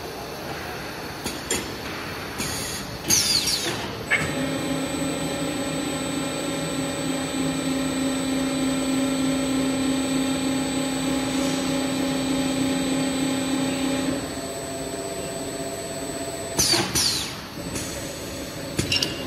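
Automatic multi-nozzle filling machine filling 5-litre bottles with edible oil. Short air hisses and clicks as the nozzles move in, then a steady machine hum with a held tone while the oil runs in. The tone changes about fourteen seconds in, and more air hisses come near the end.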